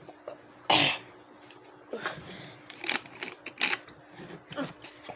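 A person coughing once sharply about a second in, followed by a few shorter coughs and throat-clearing sounds.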